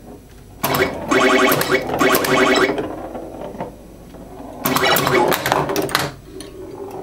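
Atari pinball machine in play: two bursts of electronic game sound effects mixed with clicks and knocks from the playfield, the first about half a second in lasting around two seconds, the second about five seconds in, quieter in between.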